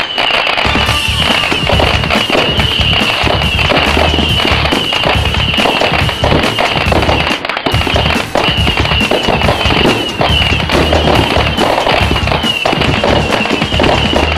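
Aerial fireworks bursting and crackling in quick succession, mixed with background music that has a steady, pulsing bass.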